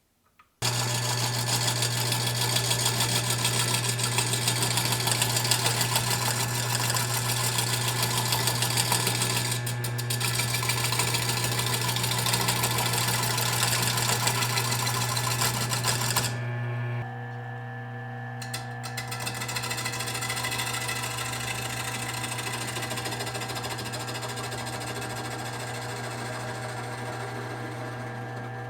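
A woodworking power tool motor running with a steady hum and loud cutting noise. About 16 seconds in the cutting stops and the machine keeps running more quietly.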